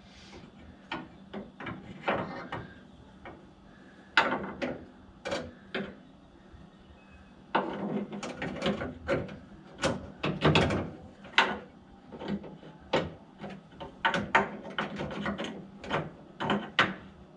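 Wiper motor parts being handled and tried in place: irregular clicks, knocks and rattles of metal parts, with denser clusters of rattling and knocking about eight and ten seconds in.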